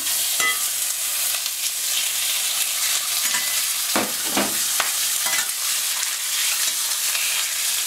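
Ground beef sizzling steadily in hot olive oil in a stainless steel frying pan, the meat just laid in. A spatula scrapes against the pan a few times.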